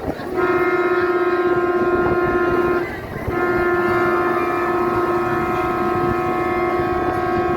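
Ship's horn sounding two long steady blasts, the first about two and a half seconds, the second longer.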